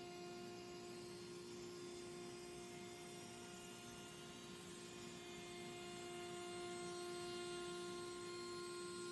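Router spindle of a Zenbot CNC machine running steadily while it surfaces a board flat. It gives an even whine at a constant pitch over a background of rushing noise.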